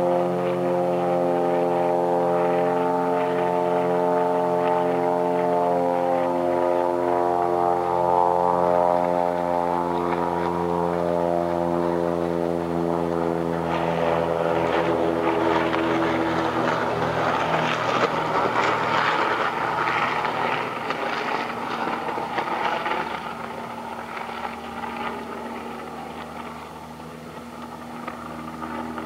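A steady engine drone, growing into a louder rushing noise about halfway through and easing off near the end.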